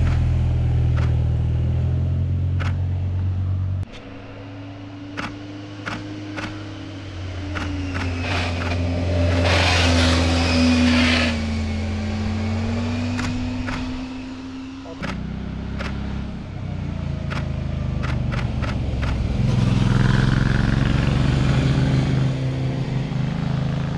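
Road vehicles passing through a bend one after another, their engines running and changing pitch as they go by. The loudest pass comes about ten seconds in and another about twenty seconds in, with sharp clicks scattered throughout.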